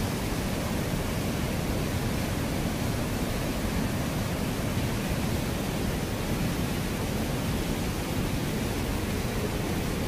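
Steady rush of a swollen, muddy river pouring over rocks and a low weir, an even noise with no break.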